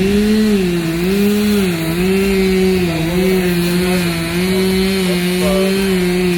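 Chainsaw running at high speed and cutting into catalpa wood, its pitch dipping and recovering about once a second as the chain bites.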